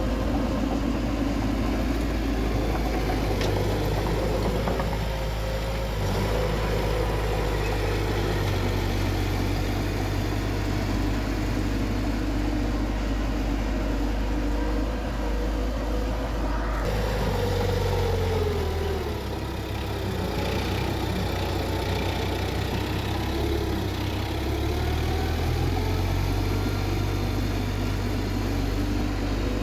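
Bulldozer's diesel engine running steadily under work, its pitch shifting and dipping a little past halfway as the engine speed changes.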